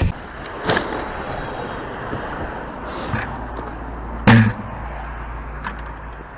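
Steady outdoor background noise with a few sharp knocks and rustles, the loudest about four seconds in.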